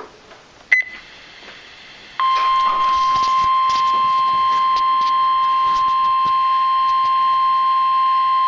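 NOAA weather radio's 1050 Hz warning alarm tone: a loud, steady single-pitch tone that starts about two seconds in and holds, the alert signal that comes before a warning message. A short click comes just under a second in.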